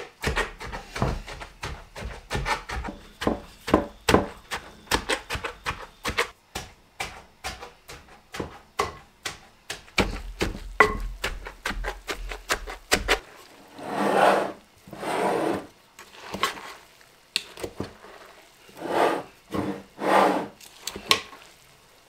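Wooden tamper pounding shredded cabbage in a stoneware crock, quick repeated wet thuds that work the cabbage until it releases its juice for sauerkraut. From about two-thirds of the way in the strokes turn slower and longer, a rubbing sound as the cabbage is mixed.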